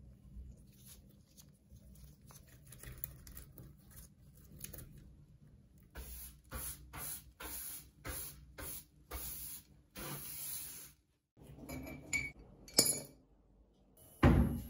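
Stiff-bristled hand brush sweeping rust dust across a wooden workbench in about eight quick, regular strokes. After it come a few sharp clinks and, near the end, one heavy thud, the loudest sound.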